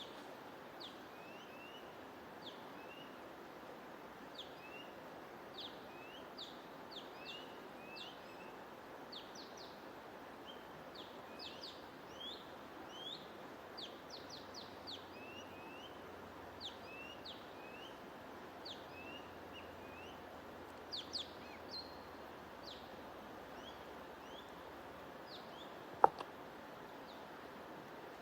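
Songbirds chirping, many short rapid chirps that rise and fall, over a steady background hiss. A single sharp click sounds near the end, louder than everything else.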